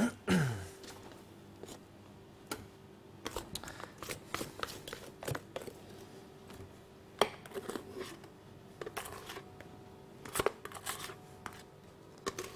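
Stainless steel mixing bowls and a whisk handled as stiff meringue is scraped and tipped from one metal bowl into another: scattered clicks and light knocks of metal on metal, with a short sliding sound at the start and a faint steady hum underneath.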